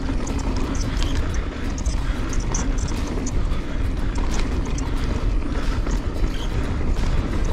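Enduro mountain bike riding a dirt trail: a steady wind rumble on the action camera's microphone, with the tyres on dirt and the bike rattling and clicking over bumps.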